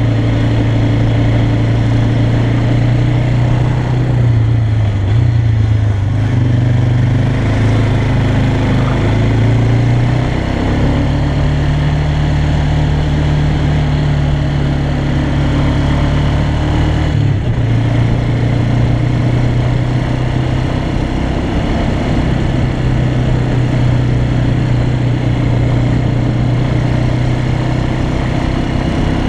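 Yamaha Bear Tracker 250 quad's single-cylinder four-stroke engine running steadily as the quad climbs a mountain track. Its note shifts around four to six seconds in, rises about ten seconds in, and drops back again a little past halfway.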